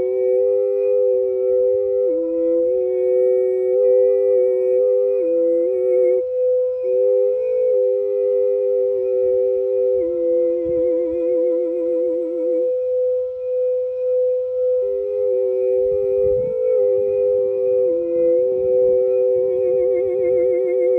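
Singing bowl ringing a steady sustained tone, with a voice humming a slow line of held notes over it that steps between pitches and breaks into rapid warbling trills twice, about ten seconds in and again near the end.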